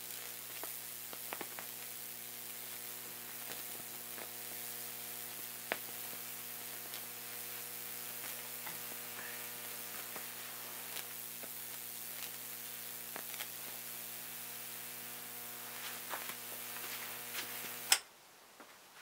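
High-voltage supply for a Lichtenberg wood burn humming steadily, over a hiss and scattered sharp crackles as the current burns branching paths through padauk wood. Near the end there is a loud click and the hum cuts off suddenly as the power goes off.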